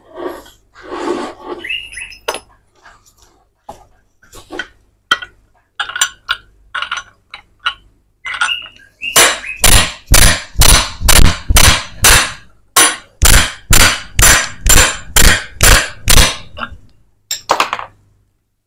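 Sharp, ringing metal-on-metal hammer blows, about three a second for some seven seconds in the second half, struck on a socket held against the end of a Yamaha Vixion crankshaft to drive it out of its crankcase half, where it sits tight in its bearing. Lighter, scattered knocks and clinks come before the steady run.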